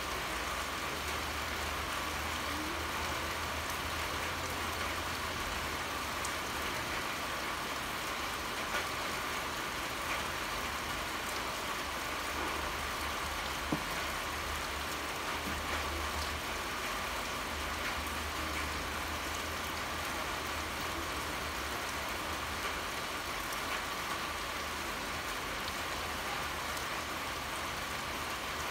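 Steady pouring rain, an even hiss with occasional single drops ticking, over a low rumble.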